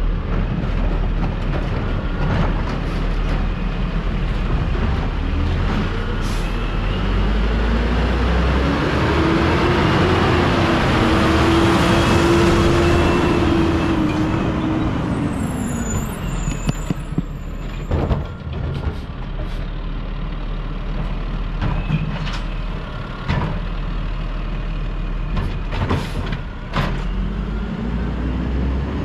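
Garbage truck's diesel engine running as the truck drives close past. The engine note swells and bends up then down around the middle, then fades as it pulls away. A few short, sharp sounds follow later as it moves off down the street.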